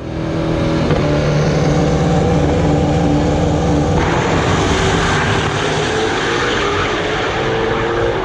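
Drag-racing engine running loud and steady. About four seconds in the sound turns brighter and harsher, and its pitch slowly rises.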